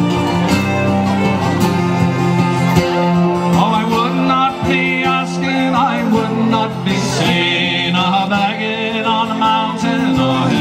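Folk dance band playing an instrumental passage: squeezeboxes hold steady chords under a fiddle melody, with a steady beat.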